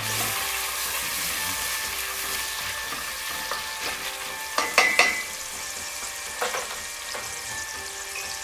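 Chopped bacon sizzling in a pot as its fat renders. A slotted spatula scrapes and knocks against the pot as it is stirred, loudest about five seconds in.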